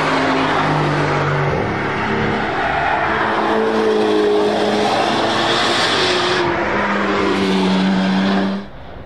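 C8 Corvette ZR1 prototype's V8 at speed, loud, its engine note stepping up and down in pitch as it works through the gears. The sound drops away suddenly near the end.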